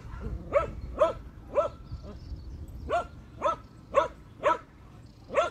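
A dog barking repeatedly, about two short barks a second, with a brief pause around two seconds in, then barking on.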